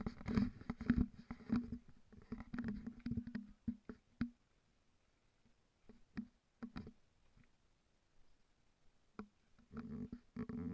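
Footsteps knocking on wooden boardwalk planks, irregular thuds with a hollow ring, thick for the first few seconds, then sparse, then thick again near the end.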